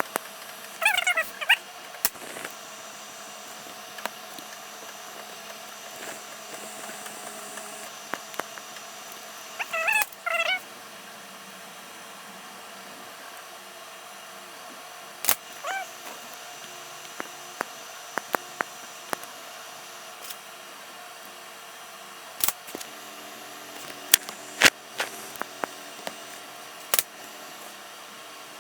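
Scattered sharp clicks, typical of a computer mouse, over a steady room hum, with two brief squeaky pitched sounds that waver up and down, about one second and ten seconds in.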